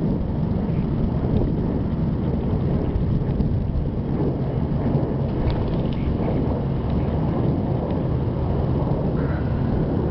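Steady low rumble of a truck engine running at idle.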